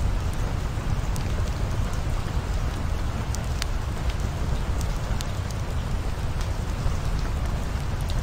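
Steady rain with scattered sharp drop ticks over a deep, even rumble.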